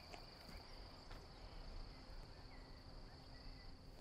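Faint, steady high-pitched insect drone, like crickets in the bush, running on without a break.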